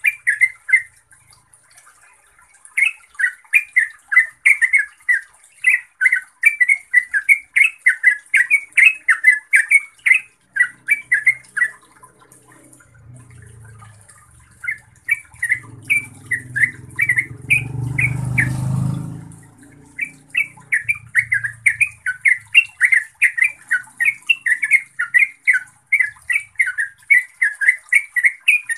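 Yellow-vented bulbul singing: quick runs of short chattering notes, phrase after phrase, with a pause of a couple of seconds before the middle. A low rumble swells and then fades out past the middle.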